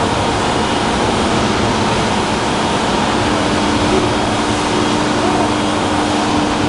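Steady mechanical running noise with a few faint steady hum tones, even in level throughout.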